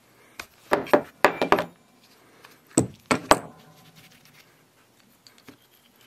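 Metal clinks and taps as a small brass fuel valve is taken apart by hand on a workbench. A cluster of clinks comes in the first two seconds, three sharper ones about three seconds in, then faint ticks.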